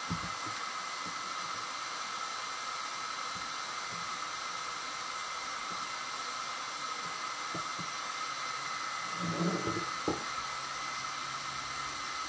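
A steady hiss with a faint high whine, from a machine or fan that nothing identifies. About nine to ten seconds in, a short low rumble and a single sharp knock.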